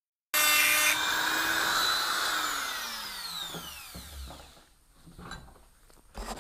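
Electric drill with a mounted grinding-stone bit briefly grinding a steel part. The trigger is then released and the motor winds down with a falling whine over about three seconds. A few knocks follow near the end as the drill is handled and set down.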